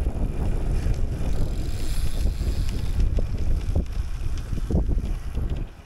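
Wind rumbling on the microphone of a rider cycling along a street, with road noise underneath; it drops away suddenly near the end.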